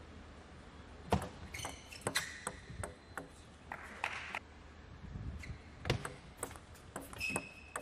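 Table tennis ball clicking off paddles and the table in quick rallies, with a few short high squeaks in between.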